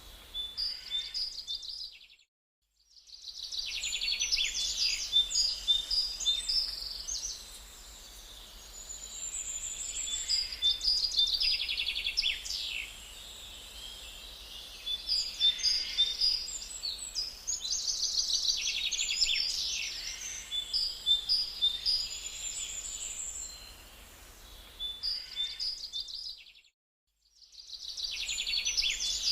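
Several songbirds singing over one another, with repeated chirps and quick trills and a faint low rumble beneath. The sound cuts out briefly twice, near the start and near the end.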